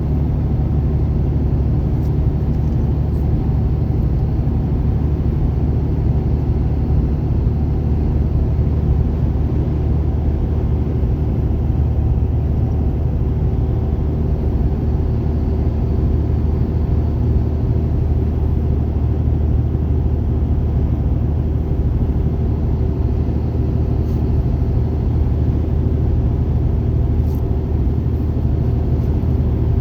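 A car cruising steadily along a highway, heard from inside the cabin: a constant low drone of engine and tyre noise.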